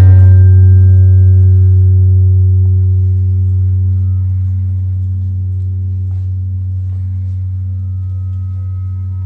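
A deep ringing tone held steadily and dying away slowly, with its higher overtones fading out first.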